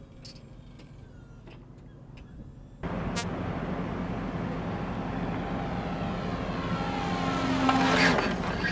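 Boeing Insitu ScanEagle drone's small propeller engine buzzing as the aircraft flies in toward its SkyHook recovery rope. The buzz starts abruptly about three seconds in, grows louder, and its pitch drops near the end as the drone passes close.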